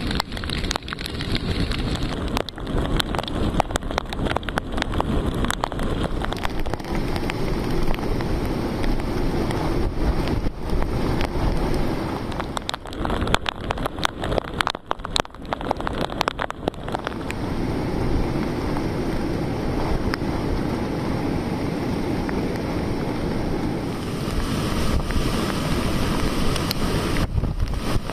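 Strong monsoon wind buffeting the microphone, with rain and breaking surf. Many sharp crackles and knocks from gusts hitting the mic in the first half, then a steadier rushing sound.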